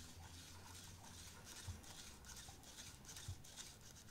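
Near silence: room tone with a faint low hum and two soft, brief knocks, about a second and a half apart.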